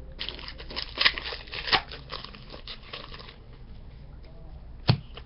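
Foil wrapper of a hockey card pack being torn open and crinkled, a quick series of sharp rustles lasting about three seconds, then a single sharp tap near the end.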